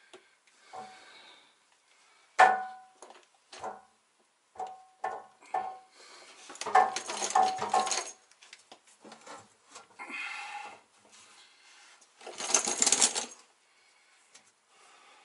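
Metal clanks and knocks as a truck engine's oil pan is handled and lifted into place, several sharp strikes ringing briefly, with two longer scraping rattles in the second half.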